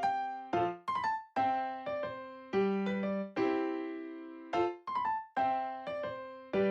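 Background music: a gentle piano melody, notes struck in an even rhythm and each fading away.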